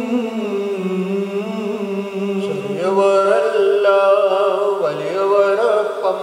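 Malayalam liturgical chant of the Holy Qurbana, a singing voice moving in long phrases over a steady held note.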